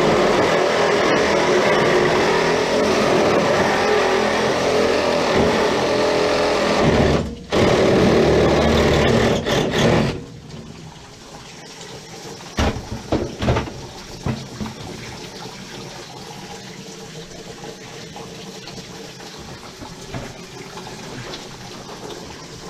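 Cordless Milwaukee M12 Hackzall reciprocating saw cutting through a drain stack pipe. It runs steadily with a brief pause about seven seconds in and stops about ten seconds in, followed by a few knocks of handling.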